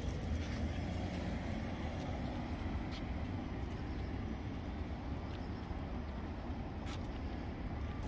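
Steady low outdoor rumble, like distant road traffic or wind on the microphone, with a few faint ticks.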